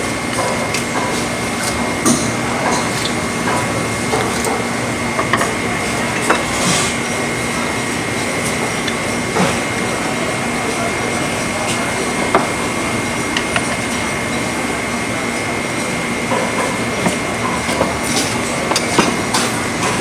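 Steady background noise with a faint steady hum and scattered sharp knocks, then a quick run of knocks near the end: a butcher's cleaver chopping pork on a block.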